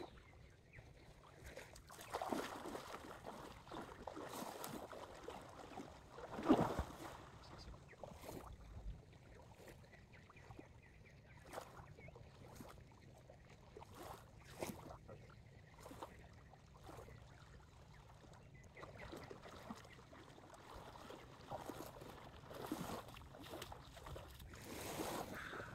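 Faint, gentle lapping of small waves on a sandy shore, swelling softly every few seconds, with the splashing of someone wading out through the shallows near the end.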